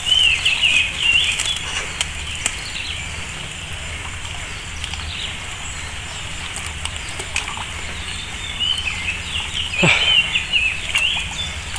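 Birds calling in short, wavering chirps, loudest in the first second and again near the end, over a steady outdoor hiss with a faint, evenly repeating high-pitched chirr.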